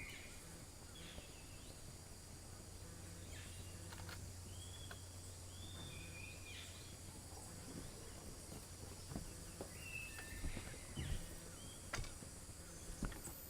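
Rainforest ambience: a steady high insect hiss with scattered short bird chirps, a few faint clicks and a low hum that fades out partway through.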